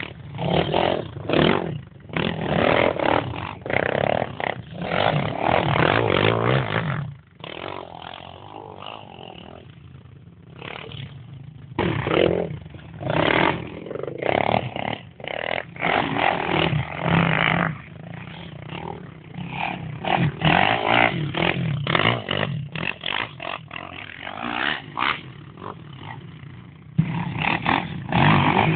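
Quad (ATV) engines revving on a dirt track, the sound rising and falling repeatedly, with clattering and scraping, and a quieter spell about seven to eleven seconds in.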